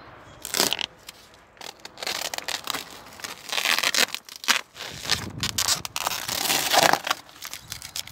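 Plastic masking film and masking tape being peeled off and bunched up by hand: irregular crinkling, rustling and tearing.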